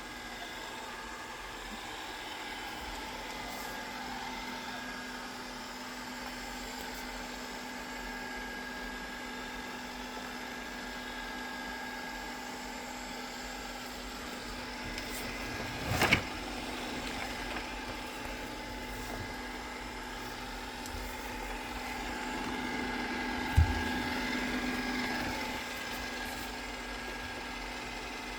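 Narwal Freo Z Ultra robot vacuum running with a steady motor hum, with a sharp knock a little past halfway and a dull thud later on as it works.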